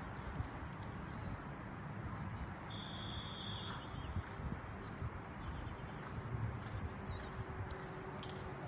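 Faint hoofbeats of a horse cantering on arena sand under a steady outdoor hiss, with a bird's short whistle about three seconds in and a brief chirp near the end.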